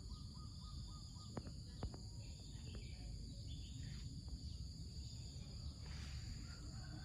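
Steady high-pitched insect chorus over a low rumble, with a couple of sharp clicks about a second and a half in.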